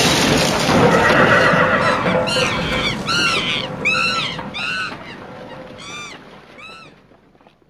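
Nuclear-explosion sound effect from a novelty doorbell: the blast's roar, already under way, rumbles on loudly and fades out over about six seconds. From about two seconds in, a string of about seven short animal-like calls, each rising and falling in pitch, come under a second apart and grow fainter.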